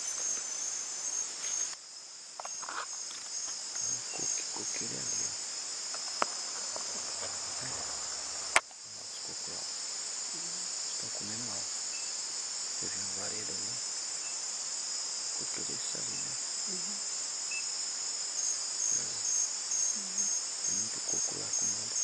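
Night chorus of crickets and other insects: a steady high-pitched trill, with one cricket chirping about two to three times a second at the start and again near the end. A single sharp click about eight and a half seconds in.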